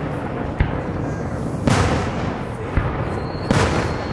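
Aerial fireworks shells bursting: four sharp bangs about a second apart, the bigger ones trailing off in a rumbling echo.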